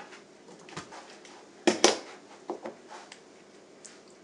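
Plastic plugs clicking and knocking at a wall outlet as a triple-tap adapter is pulled out and a right-angle plug is pushed in. The loudest is a sharp double click a little under two seconds in, followed by a few lighter clicks.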